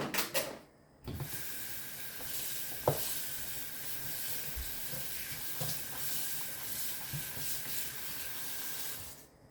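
Kitchen tap water running steadily into a sink as oyster mushrooms are washed under it, turned on about a second in and shut off near the end, with a knock about three seconds in.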